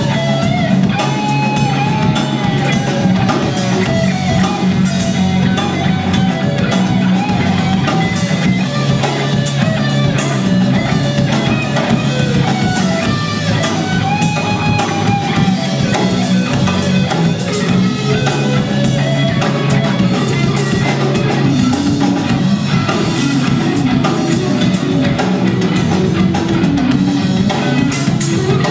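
Live blues band playing: an electric guitar lead with bent, wavering notes over bass and drum kit.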